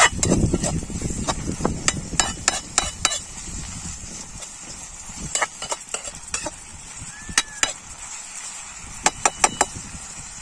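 A kitchen knife blade stirring and scraping chopped onions around a metal pan, the steel clicking against the pan in quick runs of knocks, over a faint sizzle of the onions frying.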